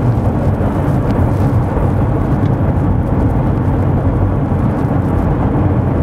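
Steady low rumble of a Mercedes diesel-chassis Class C motorhome driving at about 60 km/h: road and engine noise heard from inside the cab.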